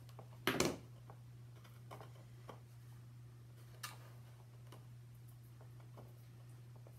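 A hot glue gun set down on a wooden table with a sharp double knock about half a second in, followed by scattered light taps and clicks of cardboard kit pieces being handled and pressed together. A steady low hum runs underneath.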